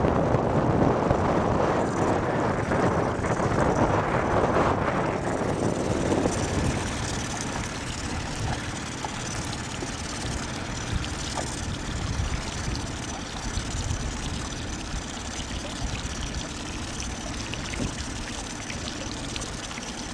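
Wind buffeting the microphone over choppy lake water, a rough steady rush that is heaviest for the first several seconds and then eases to a lighter, even hiss.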